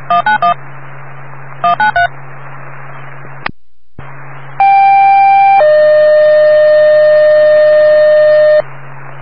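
Fire dispatch radio tone-out: two quick groups of touch-tone beeps, then a two-tone sequential page. The page is a higher tone for about a second, then a lower tone held about three seconds before it cuts off. It alerts Keene Fire to send off-road equipment, over steady radio hiss and hum.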